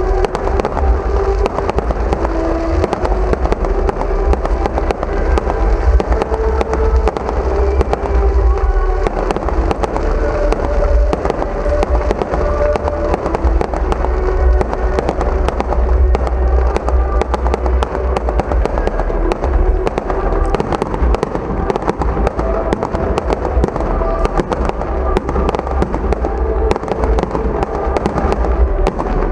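Fireworks display in full flow: a dense, continuous barrage of bangs and crackles over deep booming, with no let-up.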